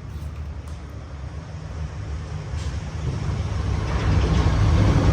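Two-stroke engine of a Husqvarna 543 brush cutter running, growing steadily louder over the last couple of seconds.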